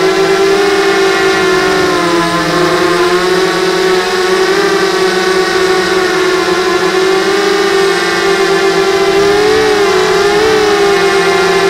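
Y6 250 mm mini hexacopter's motors and propellers whining in flight. Several close tones drift apart and back together as the throttle changes, with the clearest wobbles about two to three seconds in and near the end.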